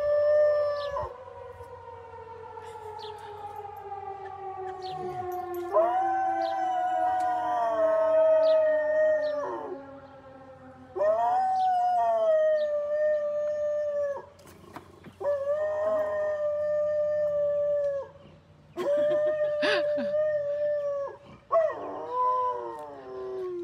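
A chocolate Labrador howling in a series of long howls of two to three seconds each, with short breaks between them, answering sirens. Beneath the first few howls a fainter wail falls slowly in pitch and dies away over about ten seconds, the siren he is answering winding down.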